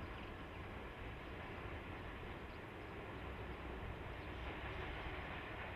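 Distant train approaching, heard as a faint, steady low rumble under outdoor background noise that grows slightly louder near the end.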